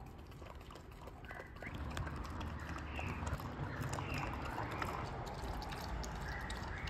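Border collie lapping and licking up a puppuccino of lactose-free milk from a cup: a run of small wet licking clicks that gets busier about two seconds in.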